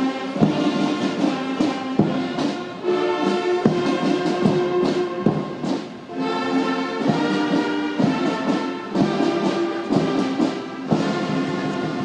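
Military brass band playing a slow ceremonial salute: long held brass notes punctuated by drum strokes every second or two.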